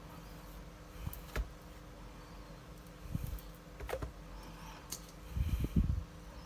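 Small clicks and knocks from handling a Canon EOS 60D camera body during disassembly, over a steady faint electrical hum, with a cluster of low bumps near the end.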